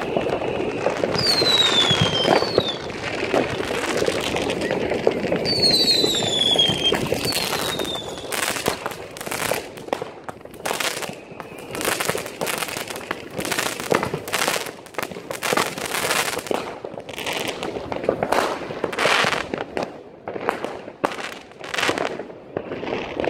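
New Year's Eve fireworks: several whistles, each falling in pitch, over a steady crackle in the first seven seconds or so, then a fast run of sharp bangs and crackles for most of the rest.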